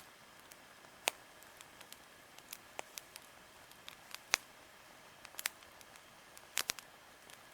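Wood campfire crackling: irregular sharp pops and snaps, the loudest about four seconds in and a quick pair near the end, over a faint steady hiss.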